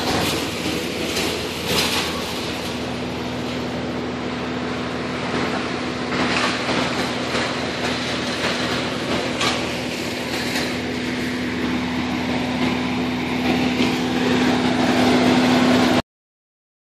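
An engine running at a steady speed, with a held hum and scattered knocks and clicks over it. The hum grows a little louder near the end, then the sound cuts off abruptly.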